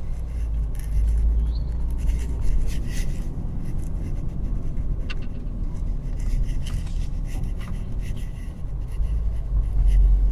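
Car driving, heard from inside the cabin: a steady low road and engine rumble that swells near the end, with scattered light clicks and rubbing sounds over it.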